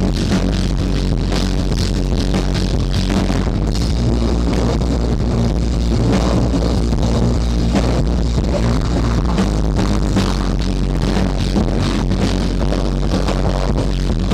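Live band playing loud, with the drum kit driving it: a steady stream of drum and cymbal hits over a dense wall of bass and guitar.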